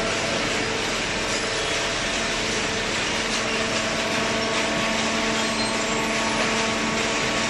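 Hydraulic paper baler running: a steady machine hum with a few constant tones over a loud even noise, the motor and hydraulic pump working without a break.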